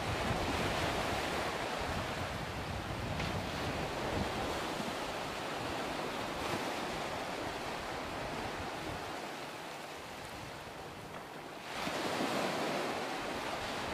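Small surf breaking and washing in shallow water, with wind on the microphone; a louder wave surges in near the end.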